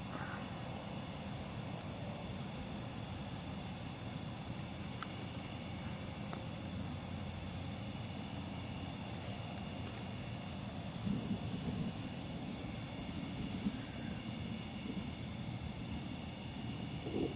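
Night insects, crickets among them, calling in a steady chorus of high, continuous trills, with a rapid pulsing trill above them, over a low, even background noise.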